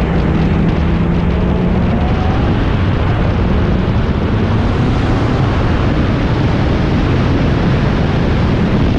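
Race car heard from on board at speed: the engine running hard under a dense, steady rush of exhaust and wind noise, its pitch climbing a little a couple of seconds in.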